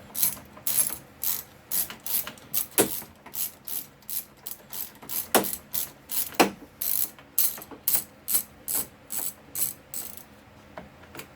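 Ratchet wrench clicking in a quick series of back-strokes, about two or three clicks a second, as a T30 Torx carburetor mounting bolt is backed out; the clicking stops near the end.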